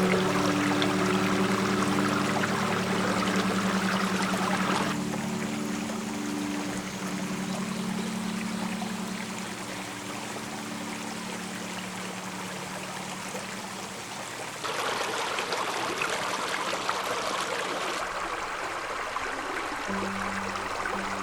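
Babbling of a clear stream, its level jumping abruptly a few times. Soft background music under it fades out in the first half and comes back near the end.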